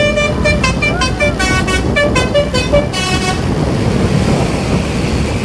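Basuri telolet horn on a medium-size tour bus playing a quick tune of short stepped notes, which stops about three seconds in. Steady road and wind rumble runs underneath.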